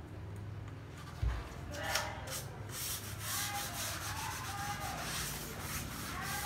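A hand rubbing along the face of a wooden floorboard in a quick run of short strokes, starting about two seconds in.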